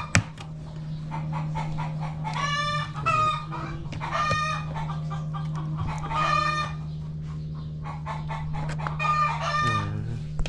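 Rooster crowing four times, about two seconds apart, over a steady low hum.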